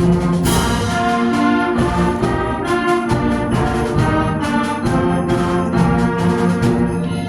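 Concert band playing: sustained brass and wind chords over percussion strokes.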